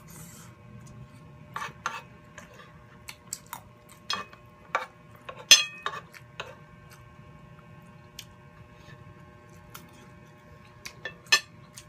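Metal spoon tapping and scraping on a plate while eating: a scatter of sharp clicks and taps at irregular intervals, the loudest about five and a half seconds in.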